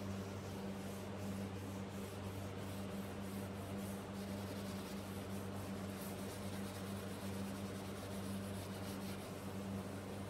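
Cloth and steel wool rubbing in quick scrubbing strokes over a wooden tabletop wet with furniture stripper, under a steady low hum.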